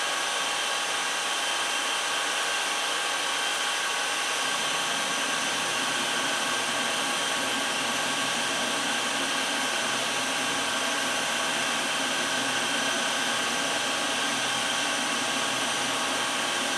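Revent 724 G DG U double rack gas oven running at temperature: a steady blowing whir from its fans and burner, with several steady whining tones over it. A lower hum joins in about four seconds in and holds.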